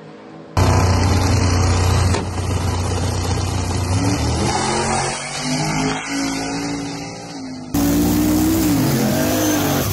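Drag race car engines at high throttle, revving and launching, with their pitch climbing and falling. The sound comes in abruptly about half a second in and changes abruptly again near the end, as separate runs follow one another.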